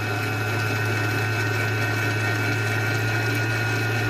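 Electric kitchen mixer running steadily, blending batter ingredients: a constant motor hum with a steady high whine over it.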